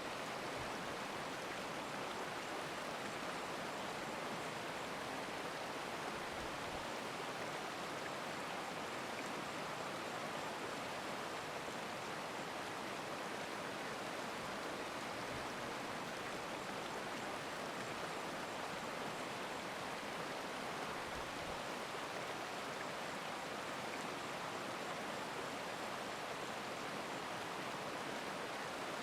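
Steady rushing of a stream, an even hiss of flowing water with no breaks.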